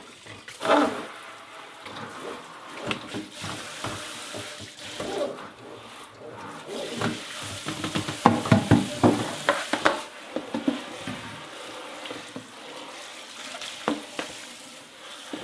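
Kitchen tap running into a stainless steel sink as a plastic fermenter bucket and its lid are rinsed to clear off bleach sanitiser, water splashing and sloshing. A burst of knocks and splashes from the handled plastic comes about halfway through.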